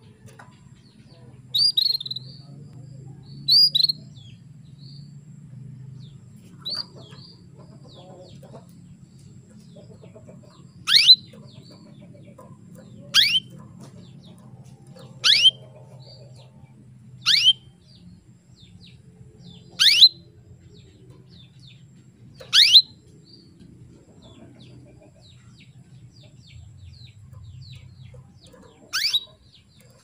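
Female canary calling to males. A couple of short double chirps come first, then sharp downward-sweeping call notes about every two seconds, over a faint low steady hum.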